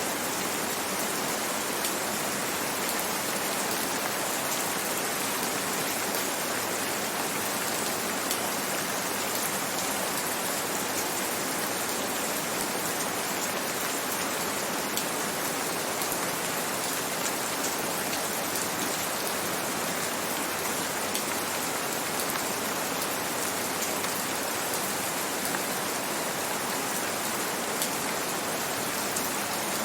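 Steady rain, an even hiss of falling rain with faint patter of drops.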